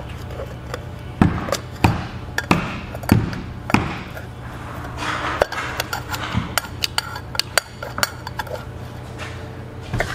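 Steel screwdriver knocking and prying at the cracked ceramic seat of a Goulds MCC pump's mechanical shaft seal, down in the seal housing: five sharp knocks about every half second, then a run of lighter clicks and ticks as the broken ceramic is worked loose.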